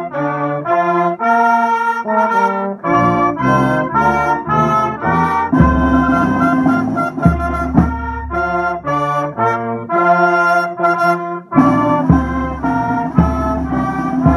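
Military brass band playing a slow piece in full chords that change about every half second.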